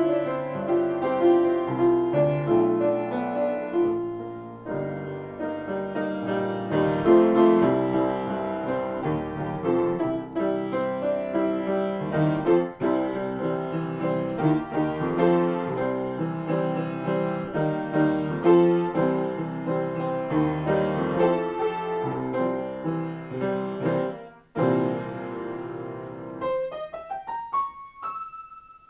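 Upright piano played solo in an improvisation, with dense chords and melody throughout. After a brief gap near the end, a rising run climbs into the high register and ends on high notes.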